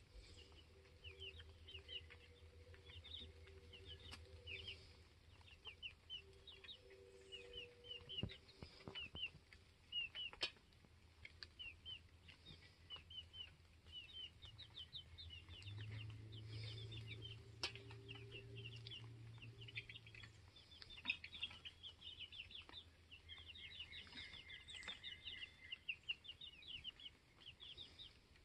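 Chickens peeping and chirping faintly: a steady stream of short, high chirps, several a second.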